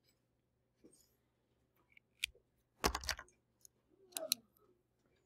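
A few short clicks and taps from a highlighter and pen being handled on a desk. The loudest comes as a quick cluster about three seconds in, with another about a second later.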